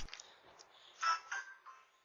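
Quiet background heard through a video doorbell camera's microphone, with two short faint sounds about a second in.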